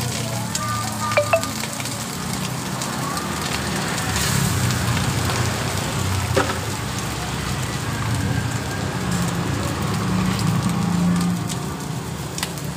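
Vegetables, garlic and rice vermicelli sizzling and frying in a steel wok, with a steady low rumble underneath. A few sharp metal clinks come through: two loud ones about a second in and single ones midway and near the end.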